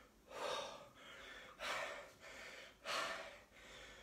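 A man breathing hard from exertion during a kettlebell set: three strong puffed exhales about 1.3 seconds apart, with softer breaths between them.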